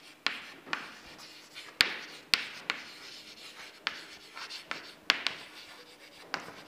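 Chalk writing on a chalkboard: scratchy strokes broken by about ten sharp taps as the chalk strikes the board.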